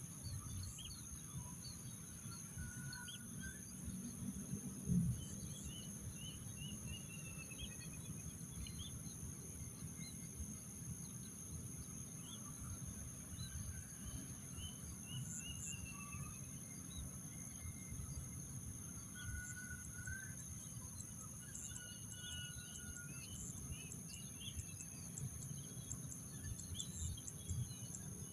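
Outdoor ambience of insects and birds: a steady, high, continuous insect drone under scattered bird chirps and short falling call series, over a low rumbling noise. A single thump about five seconds in.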